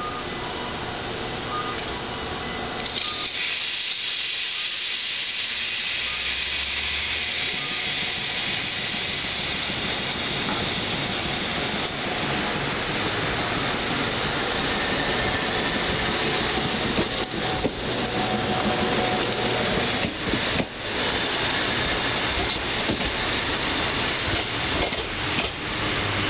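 Single-car Kumamoto Electric Railway 5000-series electric train (the ex-Tokyu 5000 'Green Frog') at a station platform and pulling away. A steady hiss of air sets in about three seconds in, and a few clunks come in the second half as the car moves off.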